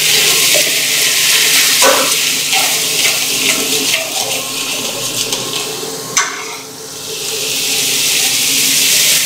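Spice masala sizzling as it fries in oil in a stainless steel kadai, stirred and scraped with a slotted steel spoon, frying until it turns a little yellow. About six seconds in there is a sharp tap, the sizzle dips briefly, then it builds again.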